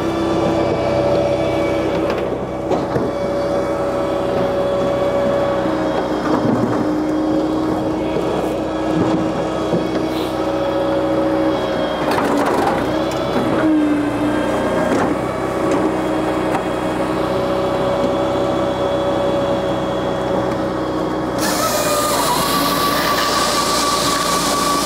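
Japa 395 firewood processor running off a tractor PTO power pack: a steady machine hum from the tractor and hydraulics whose pitch dips a few times under load. About 21 seconds in, a loud hiss joins it as the saw cuts through an ash log.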